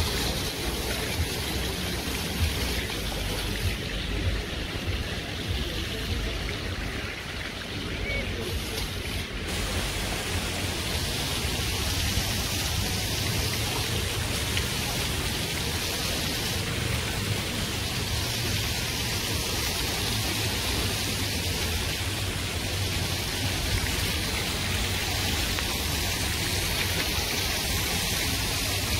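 Rows of small fountain jets splashing steadily onto a sloped stone basin, a constant watery hiss over a low rumble.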